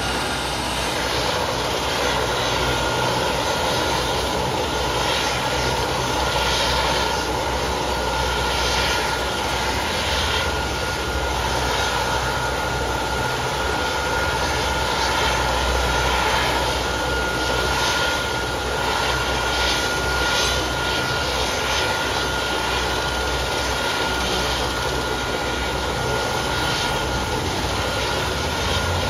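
Leonardo AW139 helicopter's twin turbine engines and main rotor running steadily as it hovers low over a rooftop helipad coming in to land, with a steady high turbine whine over the rotor noise.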